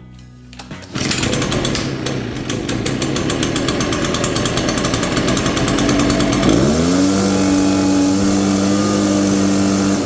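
Echo two-stroke backpack leaf blower starting up suddenly about a second in and running with a fast rattle, then throttled up about six and a half seconds in, rising in pitch and holding at high speed. It runs after the no-start repair.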